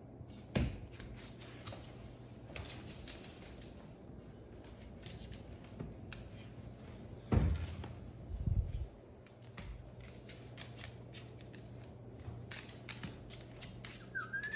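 Moluccan cockatoo's claws clicking on a hardwood floor as it walks, in many quick irregular taps. A few dull thumps come about half a second in and twice between seven and nine seconds in.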